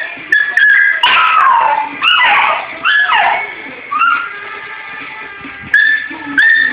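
Dog yelping and howling at a TV show's opening music: short high yips and several longer cries that slide down in pitch.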